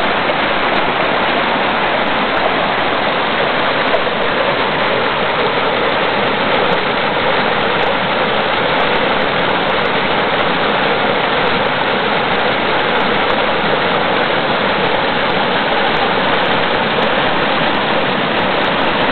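River water rushing and splashing down small cascades between boulders, a steady, unbroken rush.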